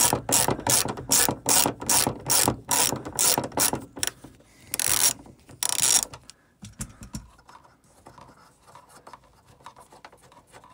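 Ratchet clicking in quick, regular strokes, about three a second, as small Torx T20 bolts are undone; the bolts come out easily. About five and six seconds in come two longer runs of rapid clicking, after which only faint clicks and handling rustle remain.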